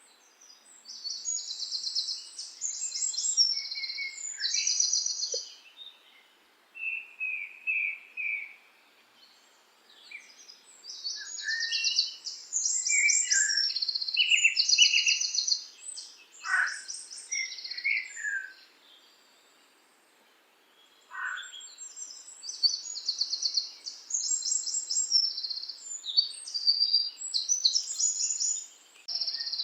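A songbird singing: three long bouts of a complex, high song full of fast trills, about ten seconds apart, with quiet pauses between.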